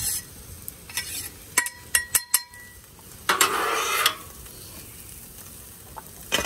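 Metal spatula scraping food across a Blackstone steel flat top griddle and knocking against a stainless steel bowl: a quick run of sharp metal clinks that ring about two seconds in, then a longer scrape as food slides into the bowl, over faint sizzling from the hot griddle.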